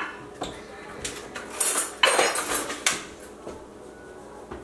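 Kitchen handling sounds: a table knife scraping and cupcakes and dishes clattering on the counter, in a few short bursts with the longest stretch about two to three seconds in.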